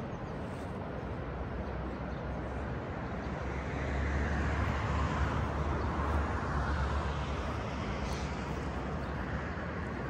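Steady outdoor rumble that swells for a few seconds in the middle and fades again, like a vehicle passing in the distance.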